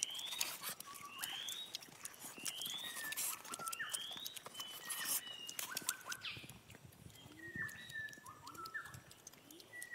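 An animal calling: short rising chirps about once a second, giving way to shorter stepped calls and brief low upward calls, over light clicks and taps.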